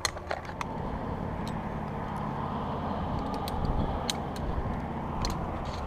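Chainsaw idling steadily after being revved, with a scatter of short light clicks on top.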